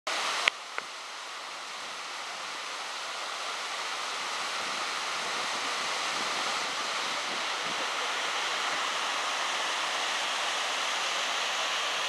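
Steady rushing of a shallow stream spilling over rocks and small cascades in a waterfall's channel, growing gradually louder over the first few seconds. Two sharp clicks near the start.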